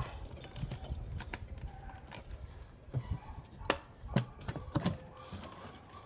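Clicks and knocks of a hard plastic motorcycle top box being unlocked with a key and its latch and lid worked open, with a little key rattle. A string of sharp clicks, the firmest between about three and five seconds in.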